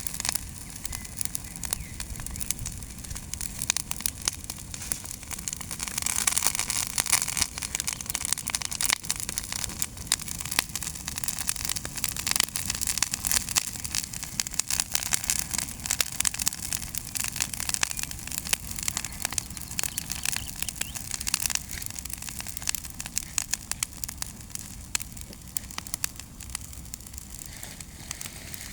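Bonfire of leaves and branches burning, with a dense, irregular crackling and popping throughout.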